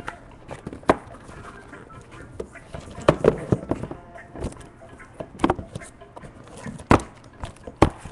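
Cardboard hobby boxes of baseball cards being pulled out of a tightly packed corrugated shipping case, knocking and scraping against each other and the case walls. A handful of sharp knocks, several bunched together about three seconds in and the rest scattered toward the end, over cardboard rustling.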